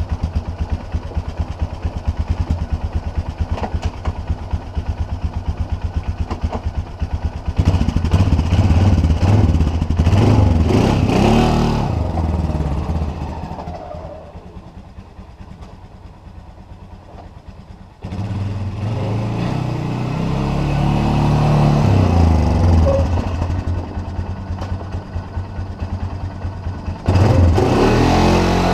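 Polaris Sportsman 500 ATV's single-cylinder engine, first idling with an even rapid beat, then revving up and down under load. It drops away to a quieter run for a few seconds, then comes back up and revs again.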